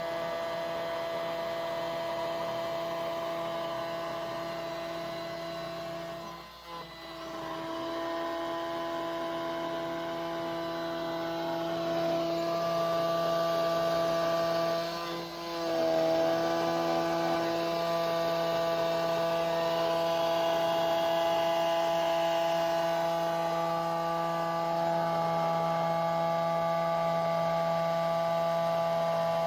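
Genmitsu 4040 Pro Max CNC router running as it mills a pickguard, its spindle giving a steady whine over a hum. The sound briefly drops away twice, about six and fifteen seconds in.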